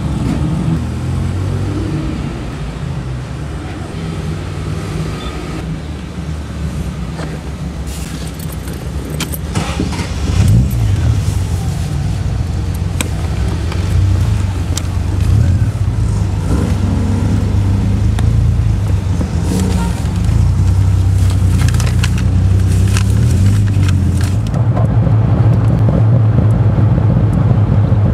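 Car engines running at low speed as cars pull past, with light clicks and rattles; about ten seconds in an engine revs up, and from there a steady low engine hum carries on. Near the end it gives way to steady driving noise of a car cruising at road speed.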